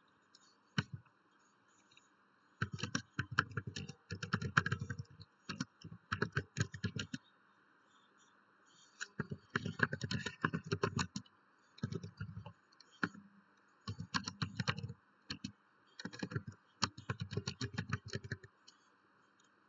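Typing on a computer keyboard: quick runs of key clicks in bursts, with a pause of about two seconds partway through.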